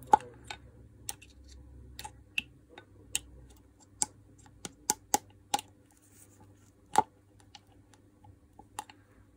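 Scattered sharp metallic clicks and light knocks as a ball bearing is handled and fitted back into its seat in a Makita HR2450 rotary hammer's gearbox housing, a test of whether that seat is worn. The loudest knocks come just after the start and about seven seconds in.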